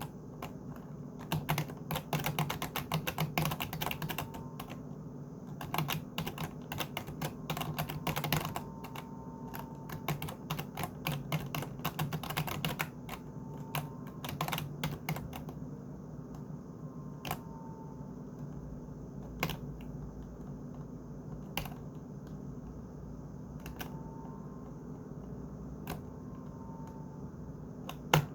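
Computer keyboard being typed on: quick runs of keystrokes for the first half, then single key presses about every two seconds, with one sharper click near the end.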